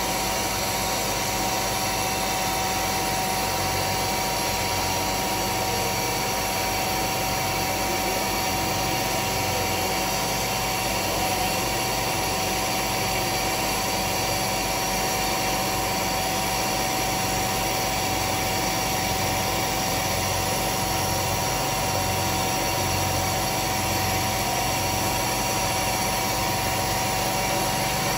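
Carpet-cleaning extraction machine running steadily, an even mechanical hum with a few constant tones.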